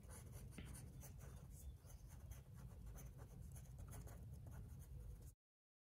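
Pencil scratching on paper in quick sketching strokes, faint, stopping abruptly near the end.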